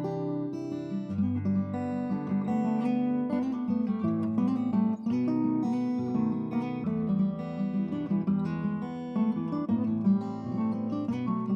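Instrumental background music, with many notes changing in quick succession at an even level.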